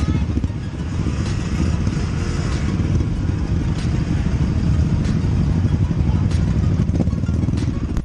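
Motorcycle running at low speed in slow, crowded street traffic, a steady rough rumble with a few sharp clicks.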